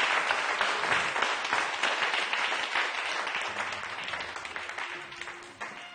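Crowd applauding, the clapping dying away gradually.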